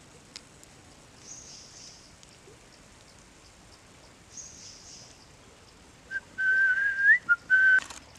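Someone whistling: after several quiet seconds of faint hiss and a few soft ticks, a loud whistled tone starts about six seconds in, held near one pitch with a short rise in the middle and broken into several notes.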